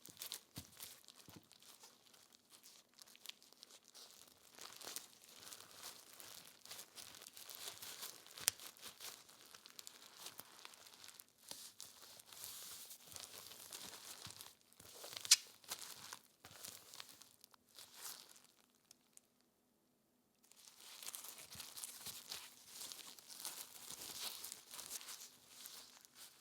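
Plastic cling wrap crinkling and crackling as it is wrapped and pressed around soft microwave-cooked rolled egg to shape it. There is one sharp crack about midway, then a brief break before the crinkling starts again.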